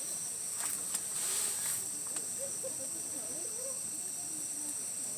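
Steady high-pitched chorus of insects, like crickets, with a few faint clicks and a brief rustle in the first two seconds.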